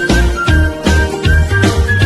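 Background music with a steady, fast beat, heavy bass and a short repeating high melody.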